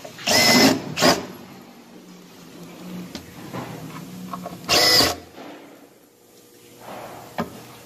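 Power drill with a square-drive bit driving screws into the wooden panels of a wardrobe unit, in short whining bursts. One burst comes near the start with a brief second pulse just after it, and another comes about five seconds in.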